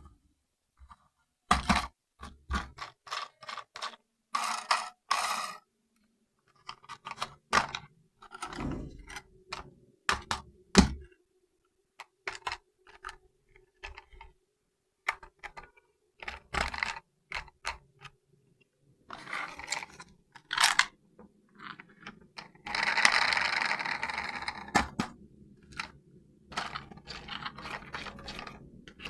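Irregular clicks, knocks and short scrapes of hands handling a toy radio-control car and its unboxing materials, with a longer stretch of scraping and rustling a little past the middle.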